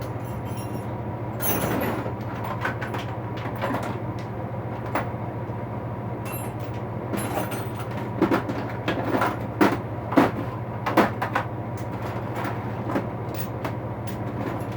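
Metal hand tools clinking and knocking as they are rummaged through and lifted out of a toolbox, in scattered short knocks that come thickest a little past halfway, over a steady low hum.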